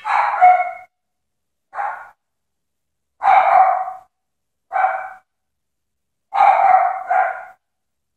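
A dog barking repeatedly: about six barks, a second or so apart, the last two close together.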